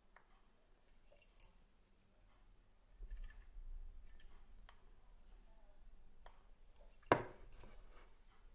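Small metallic clicks and taps of a small screwdriver working on the build deck of an Aspire Neeko rebuildable tank atomizer, with one sharper, louder click about seven seconds in.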